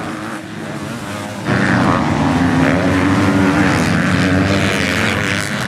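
Several MX2 motocross bikes racing on the track, their engines running together in a steady drone that grows suddenly louder about a second and a half in.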